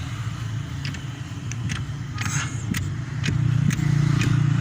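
An engine running steadily with a low, pulsing hum that grows louder about three and a half seconds in. Several short light clicks and knocks sound over it.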